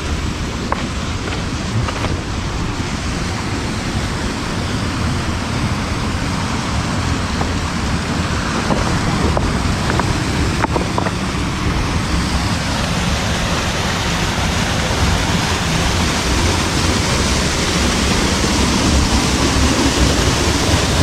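Rushing water of a waterfall, a steady noise that grows louder about halfway through, with wind rumbling on the microphone.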